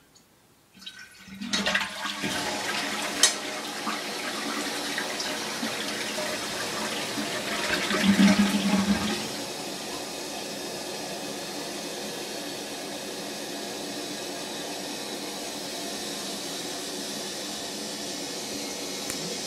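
A toilet flushing. Water surges in about a second and a half in and rushes loudly, peaking about eight seconds in, then settles into a steady hiss as the tank refills.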